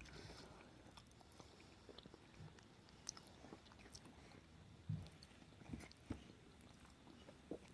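Faint, sparse chewing by a dog eating food, a few soft mouth clicks and smacks spread through the quiet.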